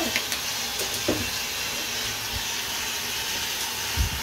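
Steady hiss of water running from a shower head into a bathtub, with a few faint knocks and a brief low thump near the end.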